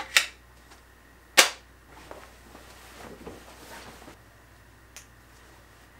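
Two sharp clacks, the second and louder about a second after the first, as a cordless angle grinder and gear are set down on a steel bench top, then the soft rustle of a denim jacket being pulled on.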